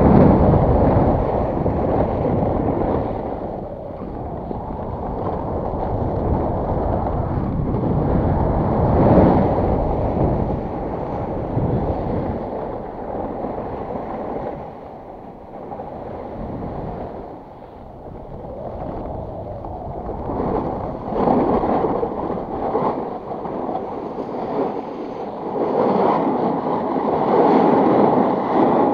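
Wind rushing over an action camera's microphone and a snowboard sliding and scraping on packed snow during a downhill run. The rush swells and eases several times as the rider turns.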